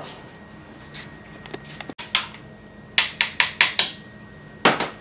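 Metal spoon clinking against a glass pitcher: a few light clicks, then a quick run of five ringing clinks about three seconds in and two more near the end.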